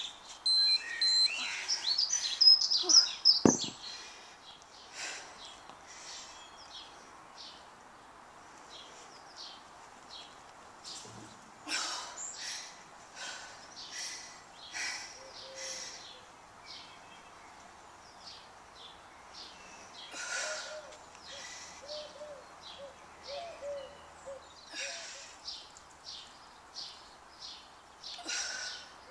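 Garden birds singing and chirping, loudest and closest in the first few seconds, with a single knock about three and a half seconds in. From about two-thirds of the way through, a pigeon coos repeatedly in a low, hooting phrase.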